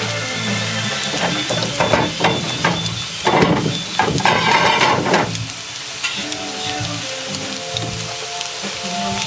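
Grated-potato latke mixture sizzling in hot oil in a stainless steel frying pan. The sizzle swells louder for about three seconds in the middle, then settles back.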